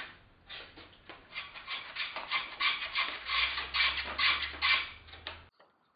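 Small hand plane taking quick, repeated shaving strokes across the end of a wooden kayak stringer, about two or three a second. It is shaping the stringer end to lie flat against the stem frame. The strokes stop abruptly about five and a half seconds in.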